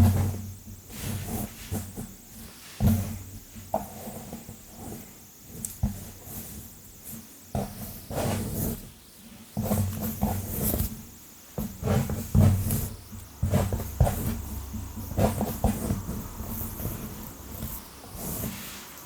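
Long fingernails scratching and raking fast through hair on a scalp close to the microphone, in irregular strokes with rustling and low thuds from the handling.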